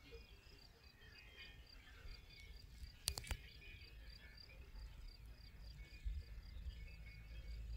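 Faint chirping of meadow insects, a high chirp repeating at an even pace with scattered softer chirps beneath it. Two sharp clicks about three seconds in.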